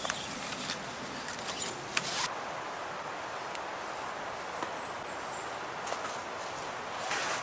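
Green cord being pulled off a tree and coiled around a hand, giving light rustling and a few sharp ticks in the first two seconds, over a steady background hiss.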